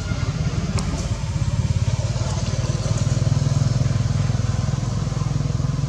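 A motor engine running steadily nearby, with a low, even throb that does not change.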